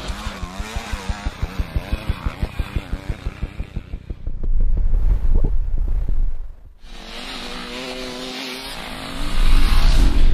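Motocross dirt bike engines revving hard as the bikes ride the track, with a rapid pulsing exhaust note at first, a heavy rumble that cuts off suddenly partway through, then another bike's engine note building louder near the end.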